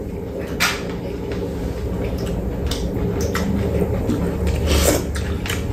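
Eating sounds at a meal: wet chewing and slurping, with a few sharp clicks of spoons and chopsticks against bowls, over a steady low hum.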